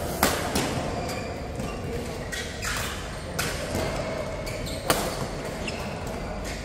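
Badminton rally: several sharp racket strikes on the shuttlecock, a second or more apart, echoing in a large hall.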